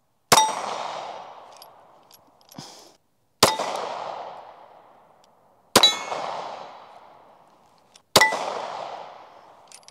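Four pistol shots from a Glock-pattern handgun, fired one at a time a few seconds apart. Each is a sharp crack with a ringing tail that dies away over about two seconds.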